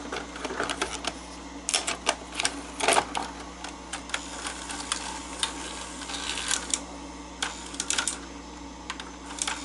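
Sony SL-S600 Betamax VCR taking in a tape: irregular mechanical clicks and short clatters from the cassette loading and tape threading mechanism, over a low steady hum.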